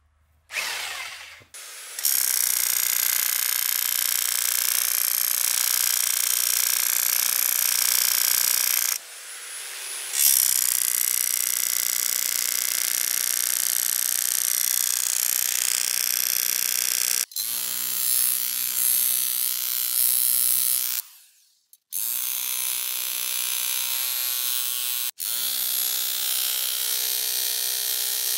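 Electric jack hammer fitted with a shovel blade, running and driving the blade into soil and roots. It starts about half a second in, then runs in long stretches, stopping briefly several times before starting again.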